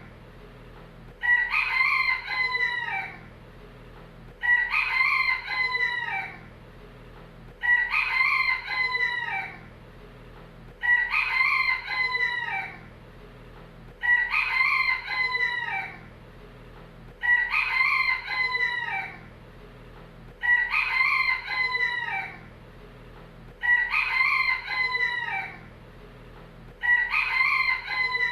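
Rooster crowing: the same cock-a-doodle-doo repeated nine times, about every three seconds, each crow lasting under two seconds.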